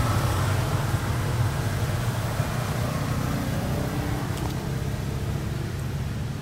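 Steady low rumble of a motor vehicle engine running, easing slightly toward the end.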